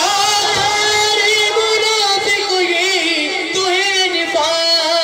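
A male reciter sings an Urdu devotional manqabat into a microphone over a PA, drawing out long, wavering melismatic notes.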